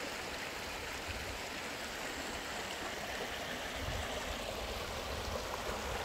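A river running, a steady even rush of water, with a low rumble joining about four seconds in.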